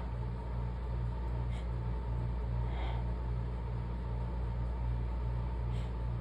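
A steady low mechanical hum, pulsing evenly about three times a second.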